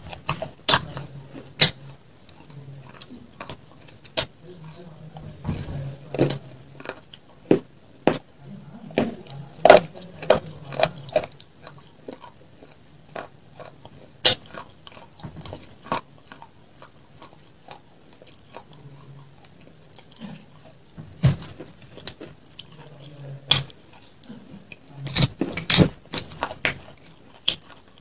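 Metal spoon clinking and scraping against a glass of ice cream, mixed with close-up eating and chewing sounds. Sharp clicks come at irregular intervals, with a cluster of them near the end.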